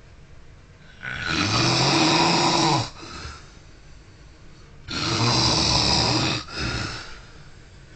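A man snoring loudly: two long snores about four seconds apart, each followed by a shorter, softer sound.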